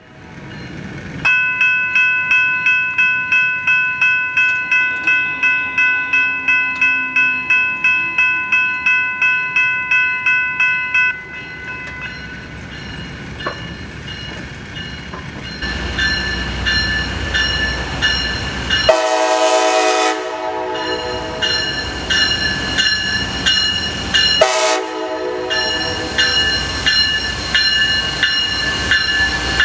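Railroad crossing bell ringing about three times a second, loud at first and then fainter. A Brightline passenger train rumbles closer from about halfway, and its horn sounds a long blast, then a short one a few seconds later, as the coaches roll through the crossing.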